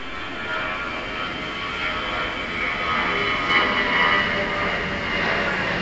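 Mumbai suburban electric local train approaching along the platform: a steady rush of wheel-and-motor noise with high whining tones, growing slightly louder as it nears.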